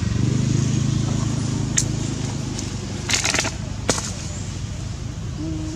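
A steady low engine hum, with a few sharp crackles about two seconds in and again around three to four seconds in.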